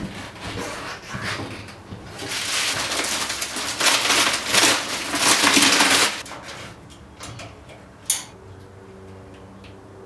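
Plastic wrapping rustling and crinkling as a large roll of insulation is handled and pulled out of it, loudest for about four seconds in the middle. A single sharp click follows near the end.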